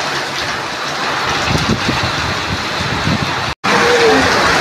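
Heavy rain pouring down steadily, a dense even hiss. The sound cuts out for a moment near the end and comes straight back.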